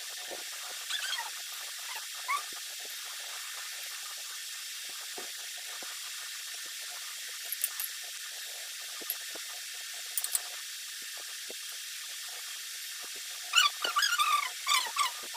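Steady hiss with a few faint clinks of serving utensils against dishes. Near the end comes a quick run of loud, high, pitched squeaks and chirps.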